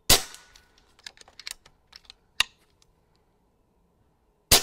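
Two shots from a Niksan Ozark .22 pre-charged pneumatic air rifle, one just after the start and one near the end. Each is a sharp crack that dies away quickly. Between them comes a quick run of light clicks, which is the action being cycled to load the next pellet.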